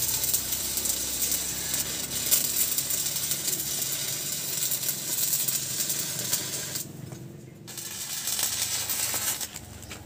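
Electric stick-welding arc on steel, crackling and sizzling. The arc breaks off about seven seconds in, is struck again for a couple of seconds, then stops near the end.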